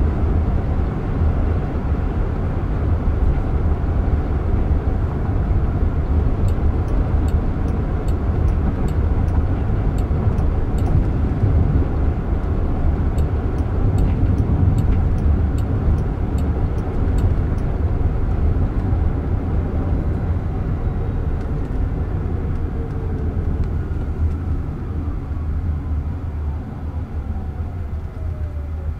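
Road and tyre noise inside the cabin of a Jaguar I-Pace electric car moving at speed, with a light regular ticking, about two ticks a second, through the middle. Near the end a thin whine falls steadily in pitch and the noise eases as the car slows for a red light.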